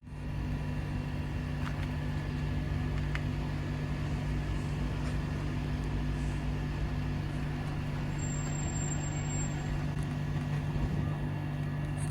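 Mitsubishi refrigeration outdoor (condensing) unit running: a steady low hum with a few faint, steady higher whines over a rush of fan air.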